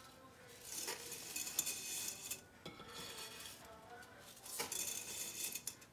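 Dry spaghetti strands being pushed into a stainless-steel pot of salted water at the boil, clattering and rattling against the pot's metal in three bouts with short pauses between.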